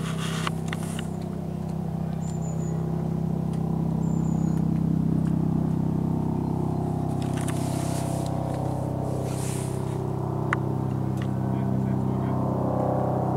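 Airbus H135 (EC135) air-rescue helicopter approaching in the distance, its rotor and turbines giving a steady low drone that grows a little louder over the first few seconds.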